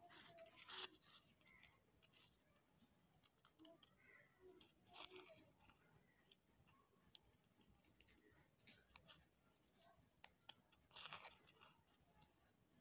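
Small scissors faintly snipping into a paper circle: a few quiet cuts spread out, the clearest about five and eleven seconds in.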